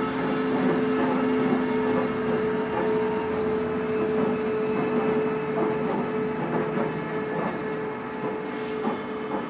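New CRRC diesel-electric locomotives rolling slowly past along the rails: a steady mechanical rumble with a held hum that fades away near the end.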